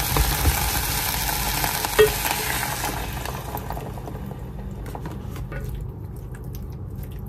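Bacon and minced garlic sizzling in a small frying pan with stirring. The sizzle dies down from about three seconds in as milk goes into the pan, leaving a few light clicks of the utensil against the pan.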